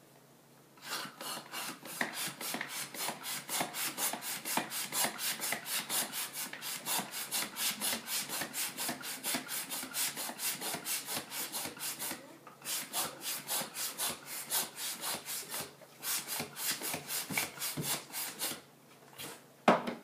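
Hand-held plastic balloon pump worked in quick strokes, about three a second, each stroke a rasping rush of air as it inflates a balloon. The pumping breaks off briefly twice, and a single sharp knock comes near the end.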